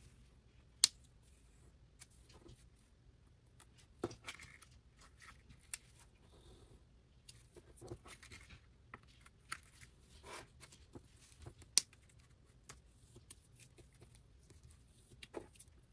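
Sleeved photocards being handled and slid into the pockets of a clear plastic binder page: soft plastic rustling and scraping, with a few short sharp clicks, two of them loud, about a second in and again toward the end.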